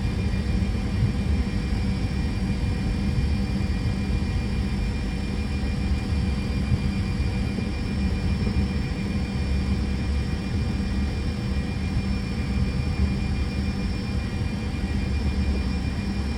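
Steady cabin noise in a Fokker 100 cockpit on the ground with its engines at idle: a low, even rumble with a few thin steady whining tones from the idling engines and the air-conditioning.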